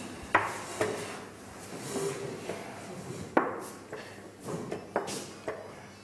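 Wooden chess pieces set down on the board and chess clock buttons pressed in turn during a blitz game: about six sharp, short knocks spaced unevenly.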